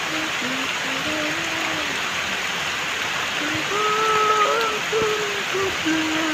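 Heavy rain and muddy runoff rushing over rocks, with water gushing from a pipe into the stream. Over the water, a voice holds long, wavering notes, loudest about four seconds in.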